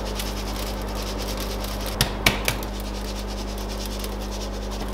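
Gloved hands rubbing dry seasoning into raw pork shoulder and beef ribs on a metal tray, a soft scratching and rubbing over a steady low hum, with two or three sharp clicks about two seconds in.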